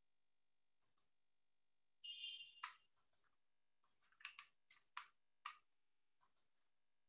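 Faint, irregular clicks of typing on a computer keyboard: a single click about a second in, then a quick run of about a dozen taps over the next few seconds.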